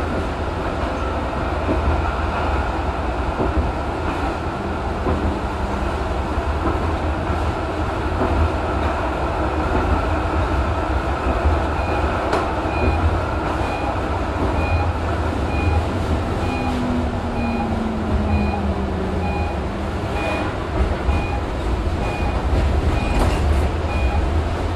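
Electric interurban tram running along street track: a steady rumble of wheels on rails and running gear. About halfway through, a short high beep starts repeating at an even pace.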